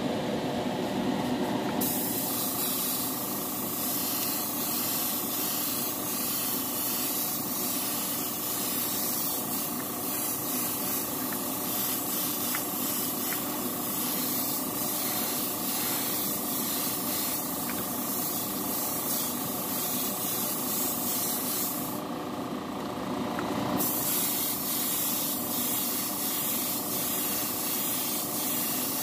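Airbrush spraying a black base coat: a steady hiss of air and atomised paint that starts about two seconds in, breaks off for a couple of seconds near the end and starts again. A steady motor hum runs underneath throughout.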